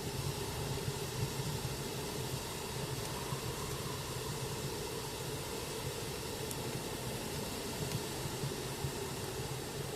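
Steady rushing blizzard wind with a low rumble, over a wood fire in a fireplace that gives a faint crackle once or twice.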